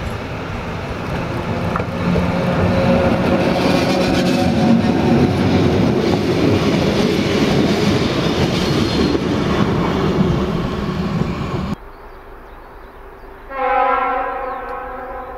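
A Czech class 113 electric locomotive hauling passenger coaches passes close by with steady rolling wheel-on-rail noise that builds up and then holds. It cuts off suddenly about 12 seconds in. About a second and a half later, one horn blast from a class 749 diesel locomotive sounds and then fades.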